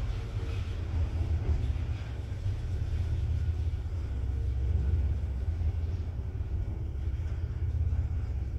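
Zremb passenger lift, modernised by ZEDTUD, travelling down its shaft: a steady low rumble of the car running between floors, heard from inside the doorless car.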